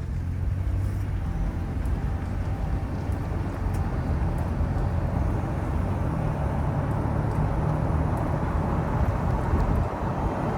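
Car being driven on a highway: steady engine and road rumble.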